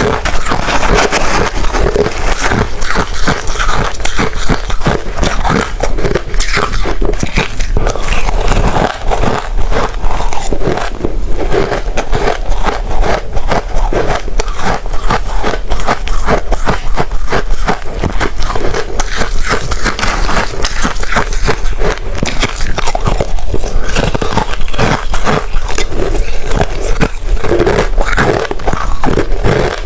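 Close-miked crunching and chewing of hard ice, a dense run of sharp crackly crunches with no pauses.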